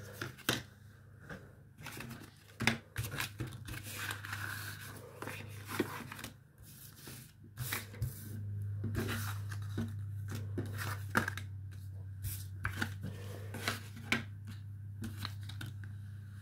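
Paper and card perfume sample sachets being handled and laid on a table: irregular rustling, taps and light scrapes, over a steady low hum that grows stronger about halfway through.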